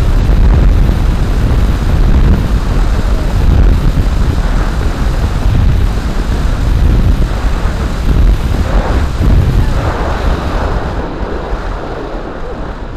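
Heavy wind buffeting the microphone on a moving electric motorcycle, with road and tyre rumble and no engine sound. It eases off over the last few seconds as the bike slows.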